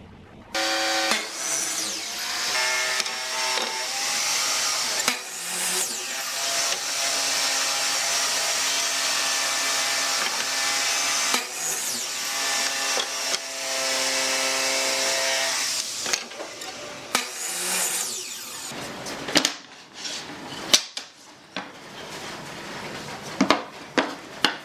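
Electric miter saw running and cutting a wooden board, its motor whine starting about half a second in and dropping briefly twice before stopping after about 16 seconds. Several sharp knocks follow near the end.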